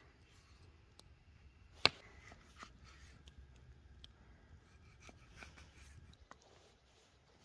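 Large knife slicing sheep tail fat on a wooden log chopping block: faint cutting sounds with scattered light taps of the blade on the wood, and one sharp knock about two seconds in.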